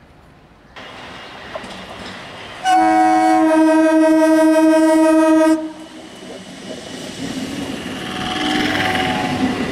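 Indian Railways electric multiple unit local train sounding its horn, one loud steady blast of about three seconds that cuts off abruptly. After the horn, the train passes close by with wheel clatter and rumble that grow louder near the end.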